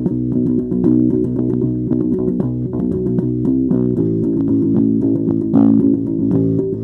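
Electric bass guitar played fingerstyle: a continuous run of plucked notes, with some sliding between notes.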